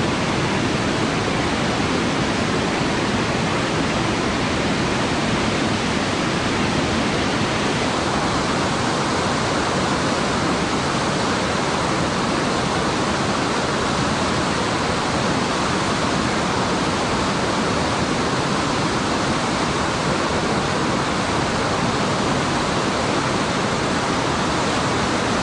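Steady, loud rushing of a fast-flowing river, an even hiss of water with no breaks.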